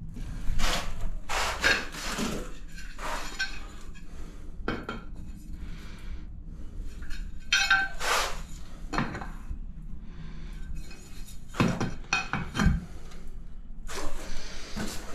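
Glazed ceramic subway tiles clinking and knocking against each other as they are handled and set into tile adhesive on a wall: a dozen or so irregular, sharp clinks.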